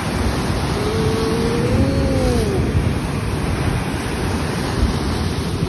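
Heavy surf crashing and churning against a rocky cliff, a loud steady rush with wind buffeting the microphone. About a second in, a brief pitched sound rises and then falls.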